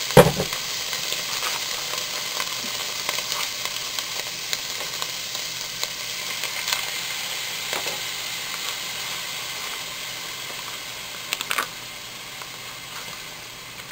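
Beef sizzling steadily in a hot frying pan as its added water boils off while taco seasoning goes in. A sharp knock comes just after the start, with a few light clicks later, and the sizzle eases slightly toward the end.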